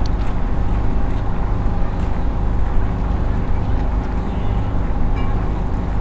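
Steady low rumble of distant city traffic.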